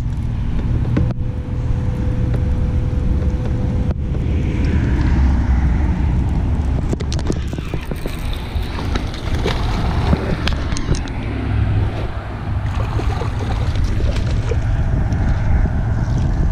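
Steady low rumble of wind buffeting the microphone. Under it, a baitcasting reel is cranked with short clicks and rattles as a hooked spotted bass is fought and reeled to the boat, splashing at the surface near the end.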